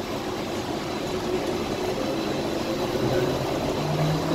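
Skylink rubber-tyred automated people mover running along its guideway, heard from inside the car: a steady rumble of running noise that grows gradually louder, with a low hum coming in about three seconds in.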